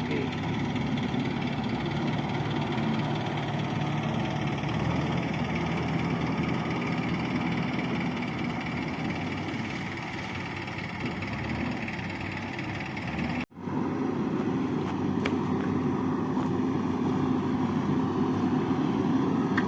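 Diesel engine of a JCB 3DX backhoe loader running steadily under work. It breaks off for an instant a little past halfway, then carries on unchanged.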